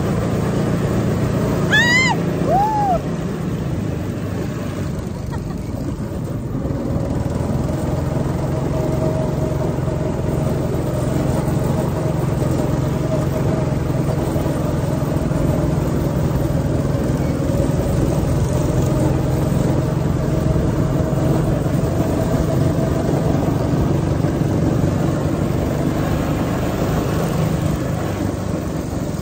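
Two-seater go-kart driving around a track: a steady engine drone runs throughout, with a brief rising squeal about two seconds in.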